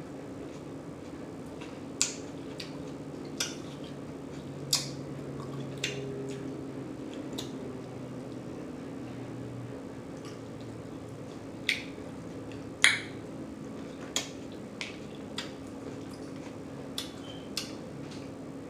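Mouth sounds of eating: scattered sharp, wet lip smacks and clicks, about a dozen, spread unevenly over a steady low hum.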